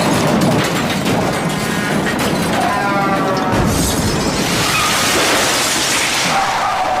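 Crash sound effects, smashing and shattering debris, layered over background music. The effects are loud and dense throughout and keep going after a sudden impact just before.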